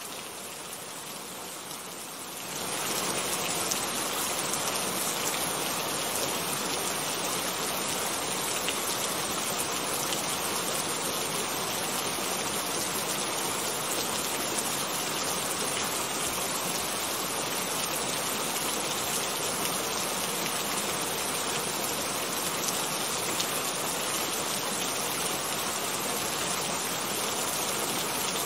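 Steady rain falling, growing heavier and louder about two seconds in, then holding.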